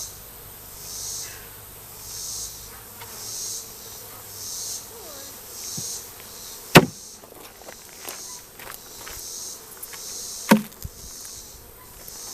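Insects calling in regular high hissing pulses, about one every second, over the faint hum of a honey bee swarm. Two sharp knocks stand out, a little past halfway and near the end.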